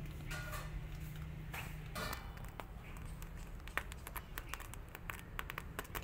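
Short soft rasps of a cat licking a kitten's fur, then a kitten's claws scratching and catching on denim jeans: a quick run of small ticks and scrapes through the second half.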